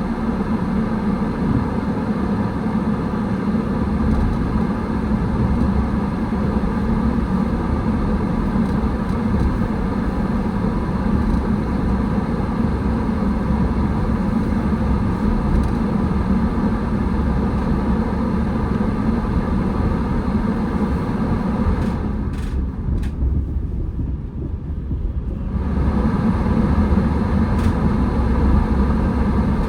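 A car on the road, its engine and tyres making a steady low rumble. Late on, the higher road hiss drops away for a few seconds, then comes back.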